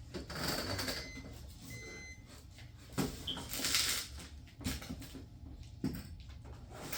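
Garage door torsion spring hardware being handled: a few sharp knocks and clinks of metal parts, with two brief high squeaks about a second or two in.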